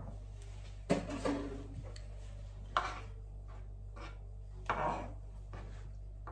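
A handful of separate knocks and clatters of kitchen utensils on a cutting board, a second or two apart, over a steady low hum.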